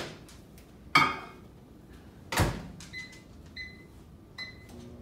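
Over-the-range microwave oven: two sharp knocks as the door is shut, then three short electronic beeps from the keypad as the time is set, and the oven's low hum starting near the end as it begins heating.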